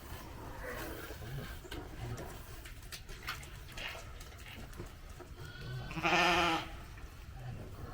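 A sheep bleats once, a single call of about half a second about six seconds in. Otherwise there are only faint rustles and small clicks.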